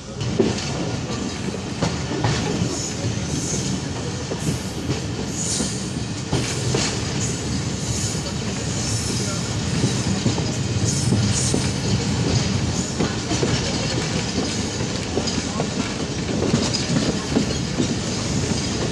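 Passenger train coach running along the track under braking, heard from an open window: steady wheel-on-rail rumble with irregular clacks over the rail joints.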